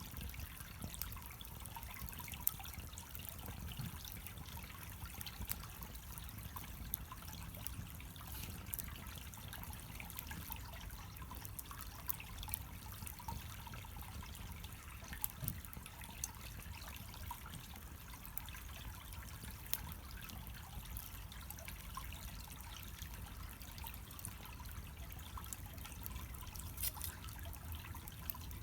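Fire crackling, with scattered sharp pops and ticks over a low steady rumble of burning.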